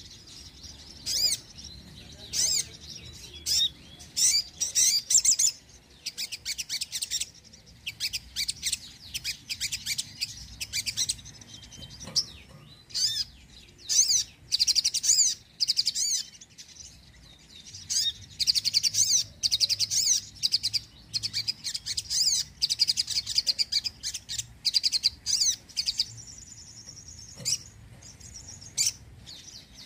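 Crimson sunbird (sogon) singing: rapid, high-pitched twittering phrases in repeated short bursts with brief pauses between them.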